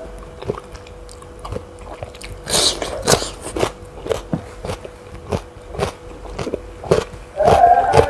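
Close-mic chewing of crisp raw fruit, with sharp crunches about two a second and one stronger crunch about two and a half seconds in. Near the end a loud wavering tone comes in over the chewing.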